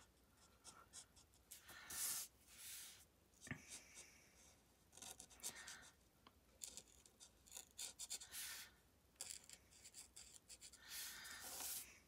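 Stampin' Blends alcohol marker's fine tip rubbing faintly across cardstock in short, irregular strokes as leaves are coloured in.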